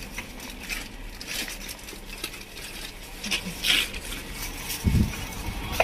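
Packaged snacks being handled in a shop: scattered crinkles, clicks and rustles of wrappers and boxes, with a dull thump about five seconds in.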